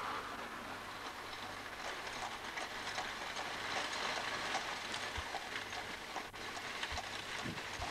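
Horse's hooves clip-clopping on asphalt as it pulls a carriage, with the carriage wheels rolling, heard as faint regular ticks over a steady hiss.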